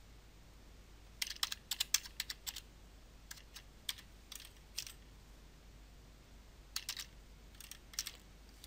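Keystrokes on a computer keyboard: typing in short bursts of quick taps. The first burst comes about a second in, single taps follow, and a second, shorter burst comes near the end.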